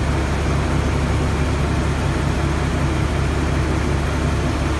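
Steady low drone of heavy machinery, with a hiss over it, holding level without change.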